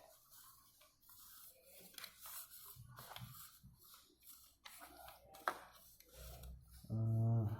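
Small scattered clicks, scrapes and rustles of hands handling the plastic mirror housing and its screws. A man's voice comes in near the end.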